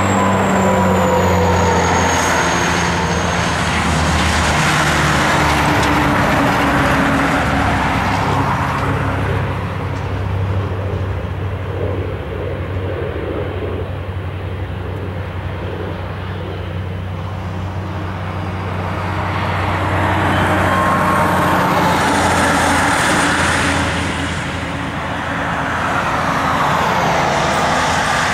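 Airbus A320 jet engines and the rush of air as the airliner rolls out along the runway after touchdown. A high engine whine falls in pitch over the first few seconds. The roar eases through the middle and swells again for several seconds as the aircraft passes by.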